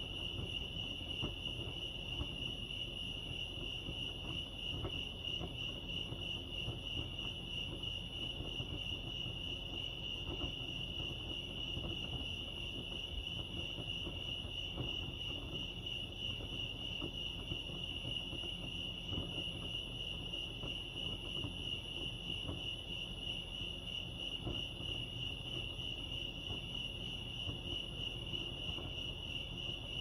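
Crickets chirping together in a steady, unbroken high-pitched trill, over a low background rumble.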